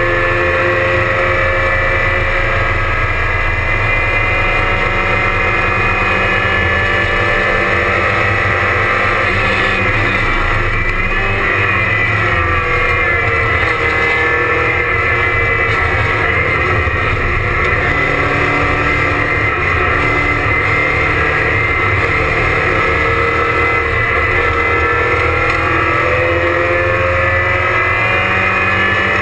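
Porsche 944 race car's four-cylinder engine heard from inside the stripped cockpit, running hard at high revs. The engine note drops and climbs again several times as the car brakes for corners and accelerates out of them.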